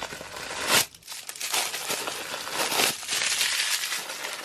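Paper crinkling and rustling in quick handfuls as a pair of sneakers is handled out of its box, with a louder crackle just before a second in.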